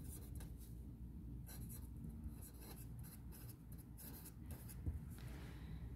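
Felt-tip pen writing on paper, faint, in short irregular strokes.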